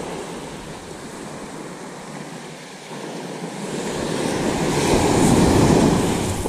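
Small waves breaking on the beach: one wash swells to its loudest about five seconds in, then falls back.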